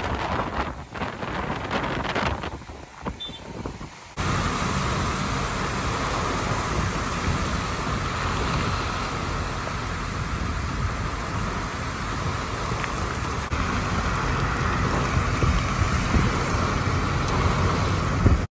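Gusts of a hurricane rainband's wind buffeting the microphone. About four seconds in this cuts abruptly to heavy rain pouring steadily, heard from a car moving on a wet road.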